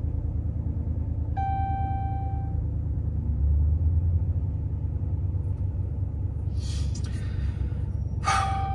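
Ram 1500's 5.7 L Hemi V8 idling, heard from inside the cab, a steady low rumble that swells briefly about three seconds in. A steady chime tone sounds twice, once about a second and a half in and again near the end, the second with a rustle.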